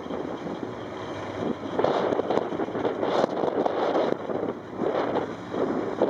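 Rally car engine running while the car waits at a stage start, its loudness rising and falling in irregular swells, with wind buffeting the microphone.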